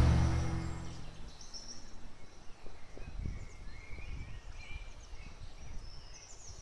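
Birds chirping with short, high calls scattered through a quiet forest ambience, and a few soft low thuds about halfway through.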